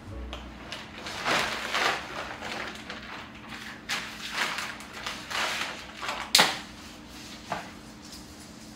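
Clear plastic and paper florist's wrapping rustling and crinkling as a bouquet of eucalyptus stems is unwrapped and handled, in irregular bursts with one sharp crackle about six seconds in.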